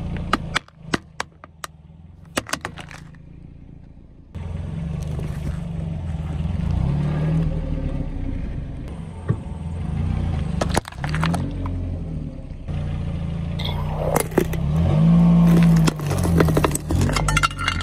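A car's engine running at low speed, its pitch rising and falling, as a tyre rolls slowly over small objects. About a second in comes a quick run of sharp cracks as plastic lunch boxes break under the tyre, with more cracks and crunches of crushed items later.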